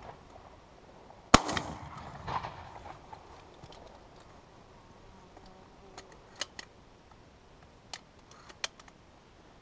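A single close, loud shotgun shot about a second in, trailing off in a rolling echo. Several seconds later come a few small sharp clicks as the shotgun is handled.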